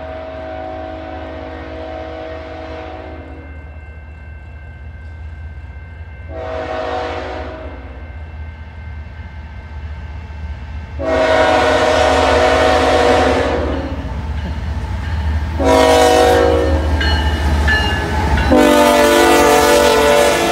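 Multi-chime air horn of a CN freight train's lead diesel locomotive sounding a series of blasts, most likely for a grade crossing as the train approaches. There are five blasts, each louder than the last as the train nears, over a steady low diesel engine rumble that swells as the locomotives pass near the end.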